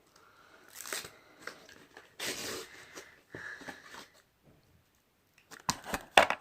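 Plastic packaging of a slime pot rustling and crinkling as it is handled and opened, with a few sharp clicks near the end.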